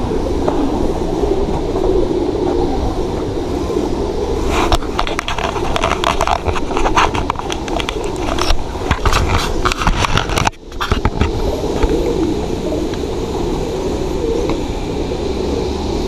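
Steady rumbling noise on a handheld camera's microphone while walking, with a run of crackling and clicking in the middle, typical of wind buffeting and handling.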